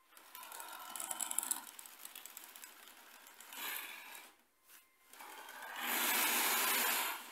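Motorized LEGO Technic tank driving on its tracks: small electric motors and plastic gears whirring with track clatter, in three spurts with short pauses, the last one the longest and loudest.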